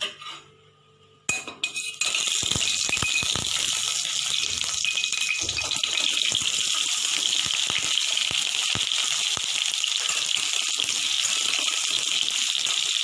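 Pieces of pointed gourd (potol) going into hot oil in a stainless-steel pan: a few knocks about a second in, then loud, steady frying sizzle from about two seconds in.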